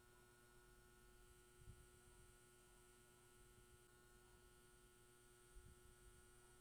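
Near silence: a faint steady hum, with two faint low thumps, one a little under two seconds in and one near the end.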